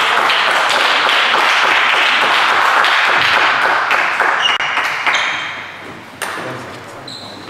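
Hands clapping in applause after a point, dense for about four seconds and then dying away. Near the end come a few light pings of celluloid table tennis balls bouncing.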